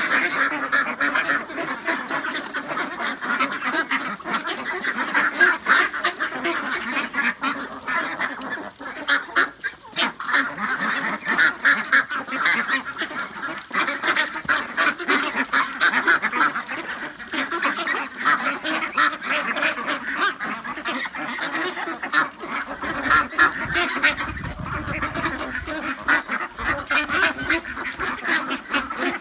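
A flock of young domestic ducks, about 40 days old, quacking continuously, with many voices overlapping into a steady chatter.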